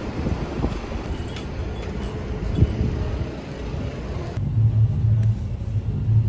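Low steady rumble of city street traffic. About four seconds in it cuts abruptly to background music with a pulsing bass beat.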